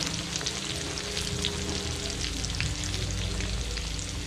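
Masala-coated fish frying in hot oil in a pan: a steady sizzle with many small crackles and pops.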